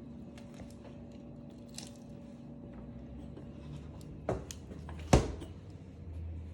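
Light handling clicks over a steady low hum, then two knocks about a second apart, the second one sharp and loud.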